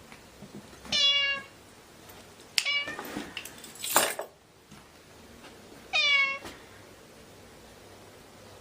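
Kitten meowing twice, a few seconds apart: short, high calls that dip slightly in pitch. Between them come a few brief clicks or knocks.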